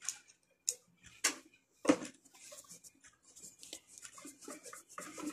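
Several sharp clicks and knocks of hard plastic parts and a small screw being handled as a vacuum cleaner's housing cover is fitted back on. They are followed by faint scattered ticks.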